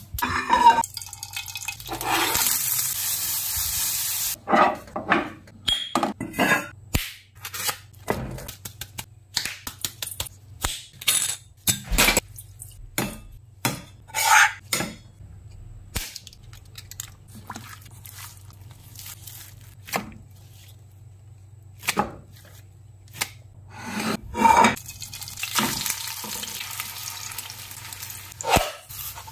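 Kitchen preparation sounds: a steady hiss for a couple of seconds near the start, then a long run of separate clinks, taps and scrapes of a metal spoon in a stainless steel mixing bowl as ground meat is mixed with flour. Near the end, oil sizzles steadily in a frying pan under the burger patties.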